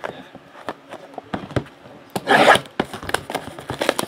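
Hands handling a sealed trading-card box, with small knocks and rubs of cardboard, then a loud rasping tear about two seconds in as its plastic wrap is ripped open.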